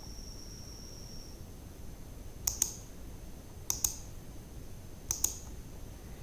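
Computer mouse button clicking: three quick double clicks, a little over a second apart. A faint high steady whine sounds in the first second or so.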